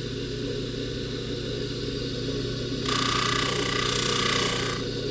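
Jewelry polishing motor running steadily. From about three seconds in until shortly before the end, a louder hiss with a steady whine comes in as a gold chain is pressed against the buffing wheel.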